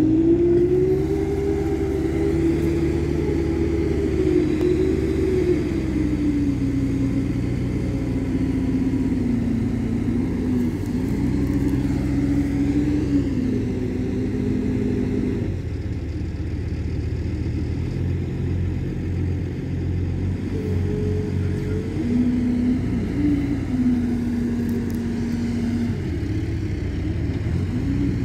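Manitou MLT741-120 LSU telehandler's diesel engine working while loading manure, its revs rising and falling as it drives and lifts, with steady stretches in between.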